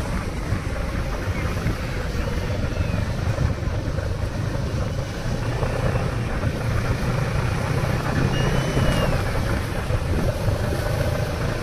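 A vehicle's engine runs steadily as it is driven along, with wind noise on the microphone. A couple of short high chirps come about eight seconds in and again near the end.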